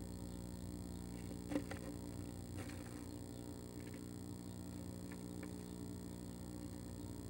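Steady electrical hum from the nest-box camera, with a few short scratches and taps as a female northern flicker shifts on the wood shavings. The loudest comes about a second and a half in, another about a second later, and fainter ones after five seconds.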